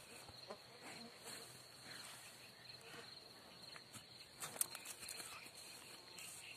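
Field insects chirring in a steady high tone, over soft, irregular tearing and crunching of a young heifer cropping and chewing grass close by. There are a few louder crunches about four and a half seconds in.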